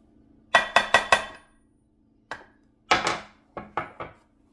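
Sharp metallic taps and clinks with a brief ring, on a Honda TRX250R aluminium crankcase half as its bearings are fitted: a quick run of four taps, a single tick, then four more taps.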